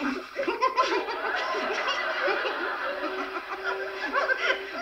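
Sitcom studio audience laughing, a long spell of many people chuckling and laughing together, heard through a television's speaker.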